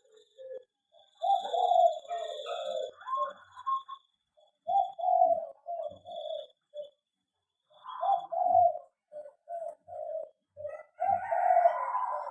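Zebra doves (perkutut) cooing: runs of short, quick staccato coos, several notes in a row, broken by brief pauses.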